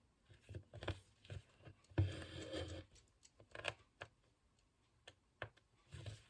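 Faint, irregular light clicks and taps, about a dozen scattered through the quiet, with a soft low thump about two seconds in.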